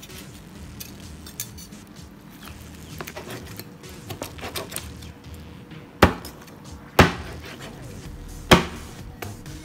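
Meat cleaver cutting up a roasted chicken on a plastic cutting board: light scraping and knocking at first, then three loud chops of the blade through the bird into the board in the last few seconds.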